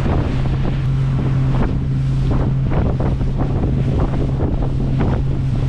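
Outboard motor running steadily at speed on a small open boat crossing choppy sea, with the hull slapping through waves and wind buffeting the microphone.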